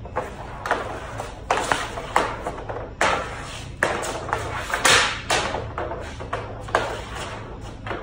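Hockey shooting practice: the stick slapping pucks off a shooting pad, and pucks knocking against the goal frame and metal cowbell targets, about a dozen sharp hits, some ringing briefly.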